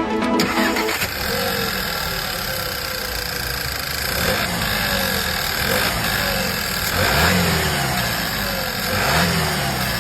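Audi/Volkswagen EA888 turbocharged four-cylinder engine running at idle, revved briefly twice in the second half, the pitch rising and falling each time.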